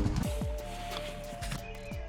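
Intro music fading out: held tones getting quieter, with a few quick downward-sliding sweeps.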